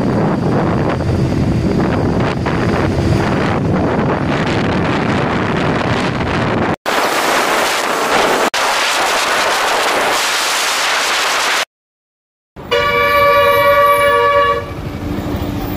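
Wind rushing over the microphone and road noise from a moving motorbike for the first eleven seconds or so. After a short break, a loud steady horn, most likely the passing bus's, sounds for about two seconds, followed by traffic noise.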